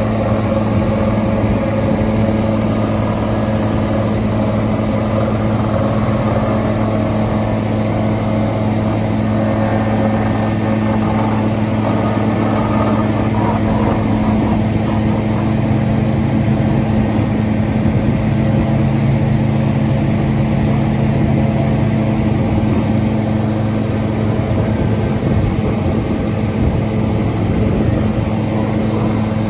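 Hitachi Zaxis 490 LCH excavator's diesel engine running steadily under load, with a steady low hum and a thin high whine.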